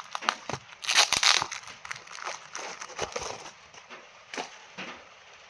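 Crackling and rustling of plant packaging being handled and opened: a run of sharp crinkles and clicks, loudest about a second in, thinning out near the end.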